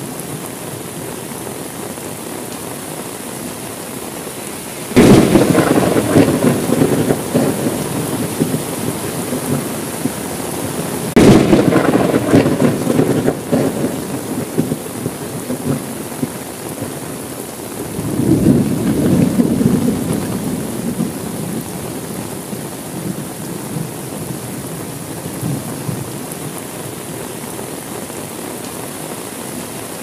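Steady rain with thunder. A sudden clap about five seconds in and another about eleven seconds in each roll away over a few seconds, and a softer rumble builds just past the middle.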